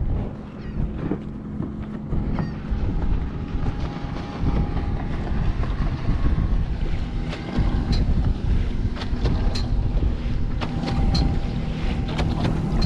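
Wind buffeting the microphone on an open boat, a dense low rumble throughout, with a faint steady hum and scattered light ticks from about four seconds in.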